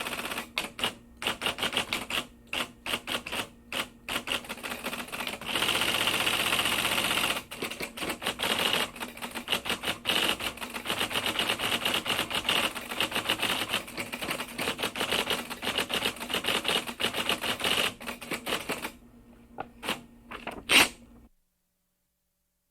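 Typewriter keys clacking in quick irregular runs, with a stretch of continuous clatter about six seconds in. It ends with one loud clack a second before cutting to silence.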